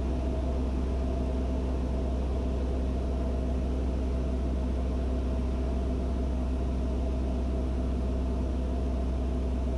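Steady, unchanging drone of a Van's RV-6A light aircraft's piston engine and propeller, heard in the cockpit.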